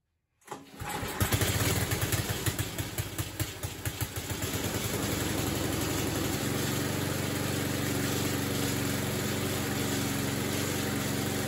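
Eaton Viking snowblower's small engine starting on its first test run after a fuel shut-off and fuel-line repair. It catches about half a second in and runs uneven for the first few seconds, then settles into a steady run, its note shifting slightly about six seconds in.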